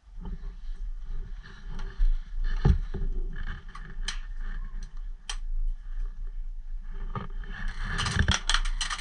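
Rustling and scraping movement noise over a low rumble of wind on the microphone, broken by a few single sharp clicks and a quick run of clicks near the end.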